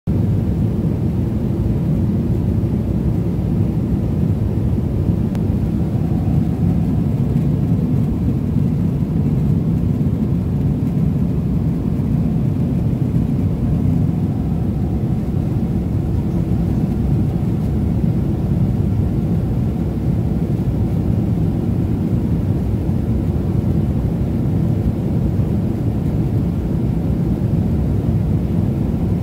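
Jet airliner cabin noise in cruise flight: a steady low roar that stays even throughout.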